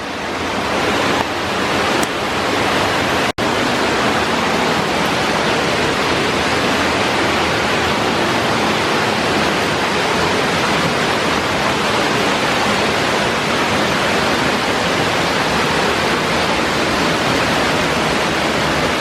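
Waterfall: a loud, steady rush of falling water with no let-up, broken only by a split-second gap about three seconds in.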